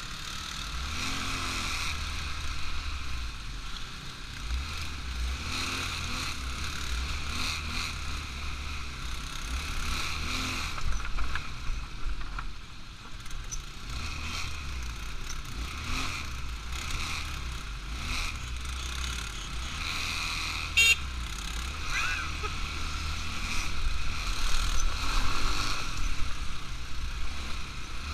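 ATV engine running as the quad is ridden, with a steady low rumble and a steady mid-pitched drone. A single sharp click comes about three quarters of the way through.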